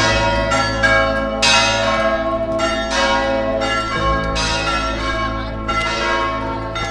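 Church bells ringing: a run of irregular strikes, each note ringing on into the next.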